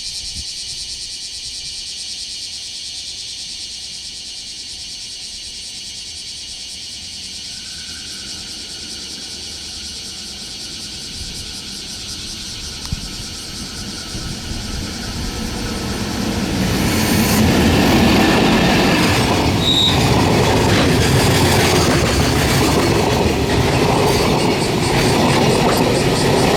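Freight train hauled by a JR EF64 1000-series electric locomotive approaching and passing: a steady hiss at first, growing louder from about two-thirds of the way in as the locomotive and wagons come by, with rhythmic clickety-clack of the wheels over the rail joints.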